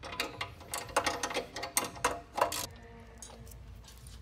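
Hand tools on metal: irregular clicks and clinks of a 13 mm wrench and ratchet working the bolts of a three-bolt exhaust flange, some with a short metallic ring. The clicking stops after about two and a half seconds.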